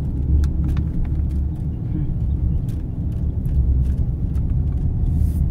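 Steady low rumble of a car's engine and tyres heard from inside the cabin as it drives slowly along a rough paved road, with scattered light clicks and ticks.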